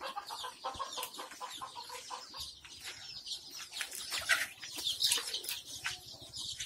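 A flock of young Kadaknath and desi chicks peeping, a dense chorus of many short, high-pitched falling cheeps.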